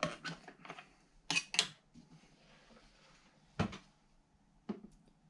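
Plastic clicks and knocks as a metal detector's control box is handled and turned over to get at its battery compartment. There are a few light clicks at first, two sharper snaps about a second and a half in, then two single duller knocks later.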